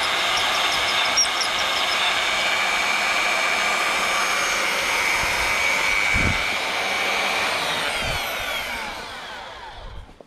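Magnetic-base drill's electric motor running at speed with a steady whine, then switched off near the end, its pitch falling as it spins down.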